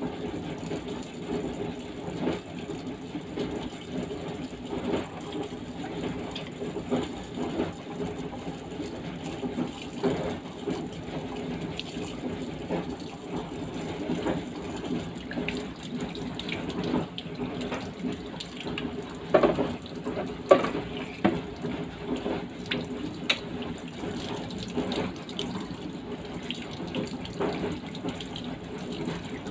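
Kitchen tap running into a stainless steel sink, the water splashing over a raw fish as hands rub and rinse it. A few short sharp knocks sound about two-thirds of the way through.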